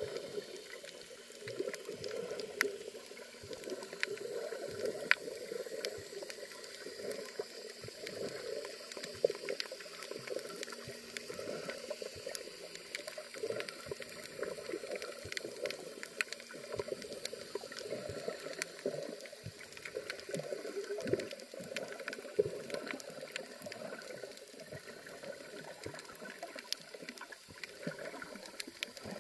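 Underwater ambience on a coral reef recorded by a submerged camera: a steady, muffled water noise with many sharp clicks and crackles scattered throughout.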